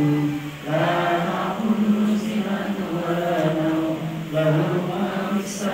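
A gathering chanting Islamic prayer recitation together in a drawn-out, sing-song voice, with a short break for breath about half a second in.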